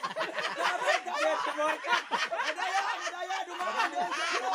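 Several people's voices chattering over one another, with laughter.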